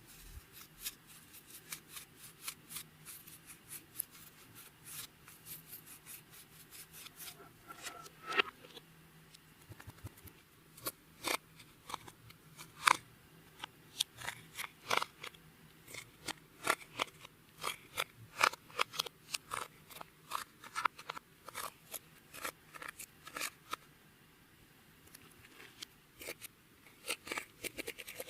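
Clear slime being worked by hand, with an irregular run of sharp clicks and pops as air pockets in it burst. The clicks get louder and busier about ten seconds in, with a quieter spell near the end.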